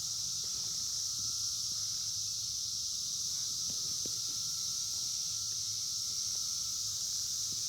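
Steady, high-pitched chorus of insects such as crickets, keeping an even level throughout, with a few faint ticks.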